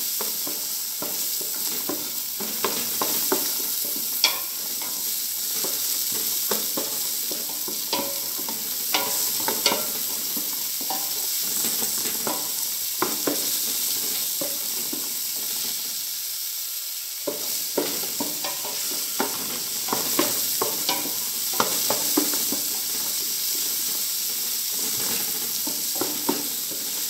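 Chopped onion and garlic frying in olive oil in a metal pot, sizzling steadily as the onion softens. A spoon scrapes and knocks against the pot as it stirs, with a short pause in the stirring past the middle.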